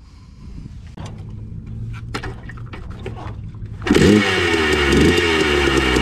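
A 1987 Kawasaki KDX200's two-stroke single-cylinder engine fires and starts about four seconds in, then runs with its revs rising and falling. It catches now that the clogged Lectron carburettor has been cleared with air from a bicycle pump. Before that, a few faint clicks and knocks.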